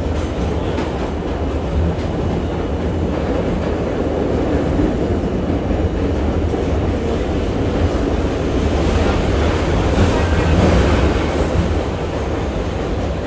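A 1964 Budd R32 New York City subway car running along the track: a steady rumble of wheels and motors. It grows somewhat louder about two-thirds of the way in, then eases near the end.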